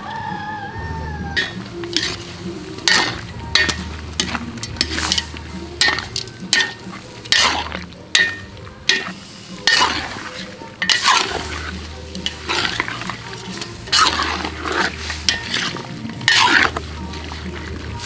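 A spatula stirring and scraping in a cooking pan of sizzling food, in uneven strokes about one or two a second.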